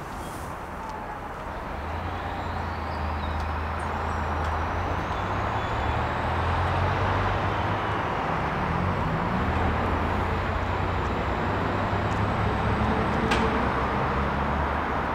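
Urban road traffic with a heavy vehicle's engine running close by; its low hum swells over the first several seconds and holds. A single sharp click comes near the end.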